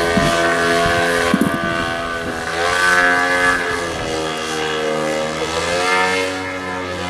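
Engine and propeller of an aerobatic RC model airplane in flight, running steadily. Its pitch dips and rises several times as the throttle changes through the manoeuvres.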